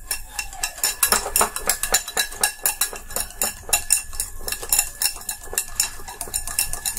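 Wire whisk beating thick gram-flour batter in a glass bowl, its wires clinking against the glass in a quick, even rhythm with a wet stirring sound. The batter is being beaten to mix in baking soda and aerate it.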